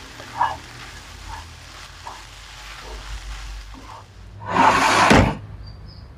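Instant noodles being stir-fried in a wok over a gas flame: faint sizzling with a few light scrapes and clicks of the spatula against the pan. About four and a half seconds in, a brief loud rush of noise lasting under a second.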